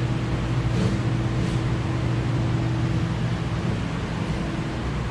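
Steady machine hum with a constant rush of air, as from a fan or blower running.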